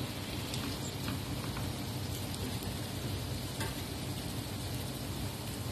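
Tomato-and-onion sauce sizzling steadily in a pot around chicken pieces, over a steady low hum. A few light clicks of metal tongs against the pot and chicken as the pieces are turned.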